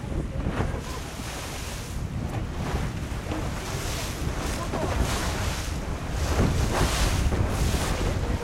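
Wind buffeting the microphone over the rush and splash of choppy sea water along the hull of a moving boat, swelling in surges of spray.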